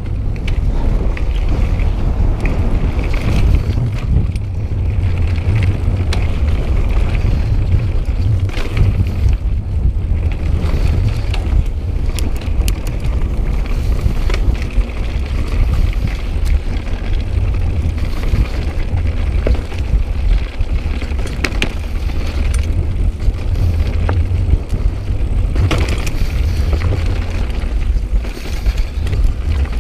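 Calibre Bossnut mountain bike rolling along a dirt singletrack: steady low wind noise on the camera's microphone over tyre noise, with scattered small clicks and rattles from the bike on the rough ground.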